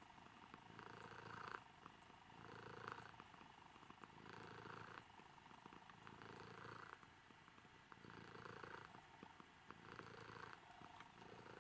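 Domestic cat purring softly and steadily, the purr swelling and easing with each breath about every two seconds: a contented, relaxed cat being petted.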